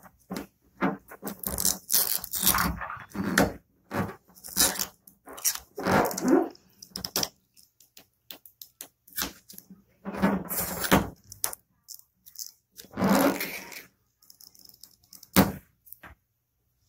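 Old black plastic stripe decal being scraped and picked off a painted car hood with fingernails and a small metal scraper: irregular scratchy scrapes and small tearing sounds in short bursts, with clicks between. The stripe is stubborn and comes away in small pieces.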